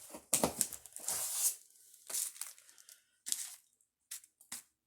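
Rustling and crinkling of fireworks packaging being handled, with a long burst of crinkling in the first second and a half, then a few shorter rustles and small clicks.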